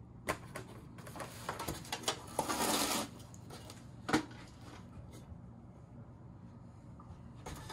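Sheet-metal bus sign housing being handled on a workbench. A cluster of clunks and clicks comes in the first two seconds, then a short scraping rustle, and single knocks follow about four seconds in and near the end.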